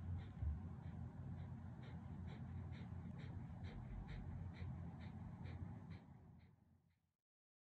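Shiba Inu panting with an open mouth, short breaths about two a second, fading out near the end.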